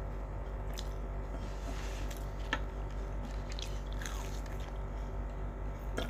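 Close-up eating sounds: crispy fried food being bitten and chewed, with a few scattered crisp crackles, over a steady low background hum.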